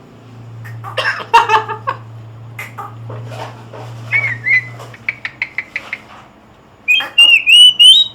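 Cockatoo calling: chattering calls, short rising whistles and a run of quick clicks, then a loud, wavering whistle near the end.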